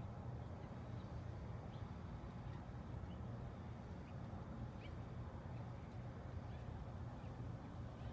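Outdoor ambience: a steady low hum with faint, scattered short bird chirps.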